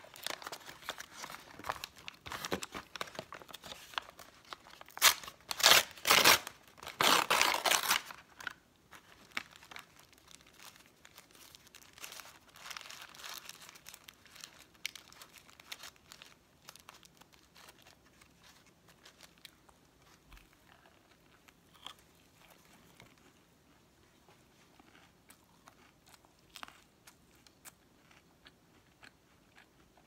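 Paper bag and foil wrapper of a Popeyes chicken sandwich crinkling and tearing as hands open them, loudest for about the first eight seconds. Softer rustles follow, thinning out to a few faint crackles.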